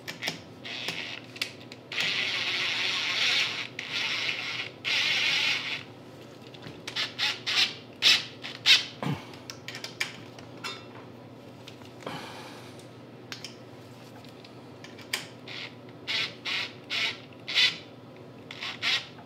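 Yellow DeWalt Atomic cordless driver driving the electric starter's mounting bolts. It runs in a few longer spells during the first six seconds, then in many short trigger blips.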